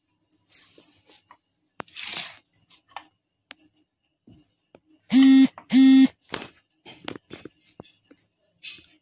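Knife clicking against a wooden chopping board as tomatoes are cut, with small handling noises. Just past the middle, two loud, short, steady-pitched tones sound a little over half a second apart.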